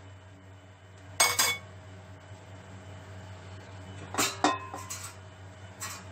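Sharp metal clinks of a utensil against a metal wok, a pair just over a second in, another pair around four seconds and a few lighter ones after, over a steady low hum.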